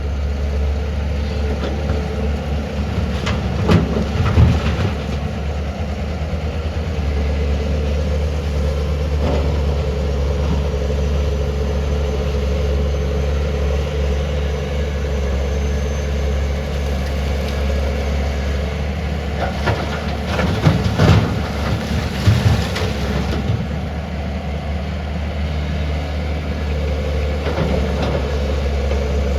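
Tata Hitachi 470 excavator's diesel engine running steadily, with two short bursts of clanking and knocking, a few seconds in and again about two-thirds of the way through.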